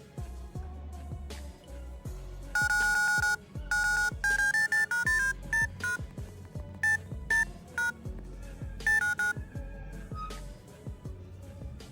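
Background music with a low pulsing beat and, through the middle, a melody of short, high electronic beeps.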